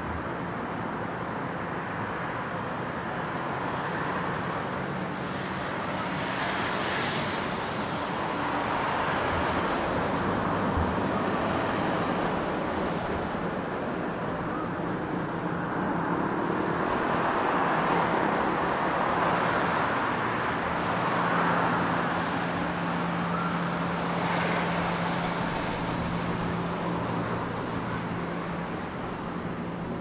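Road traffic passing steadily, vehicles swelling up and fading away every few seconds over a steady low hum.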